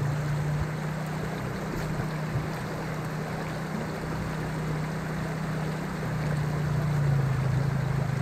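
Creek water rushing over rocks in a shallow riffle, with the steady drone of a farm vehicle's engine underneath, swelling slightly toward the end as the vehicle comes closer.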